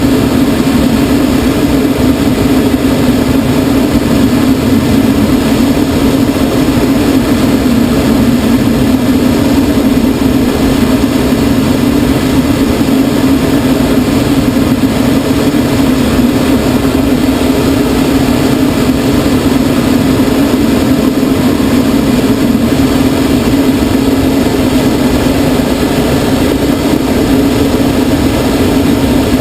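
Steady drone of a tow plane's propeller engine with rushing air, heard from inside a glider's cockpit while it is on aerotow.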